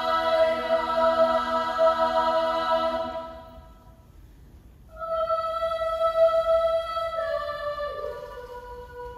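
Children's choir singing a cappella. A held chord in several parts fades away about three seconds in. After a brief pause, a single line of long held notes steps down twice and fades near the end.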